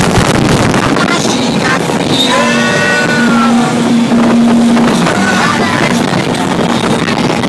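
Motorboat running at speed, with wind buffeting the microphone and the rush of engine and water as a loud, steady noise. Partway through, a child's high voice calls out for about a second and a half.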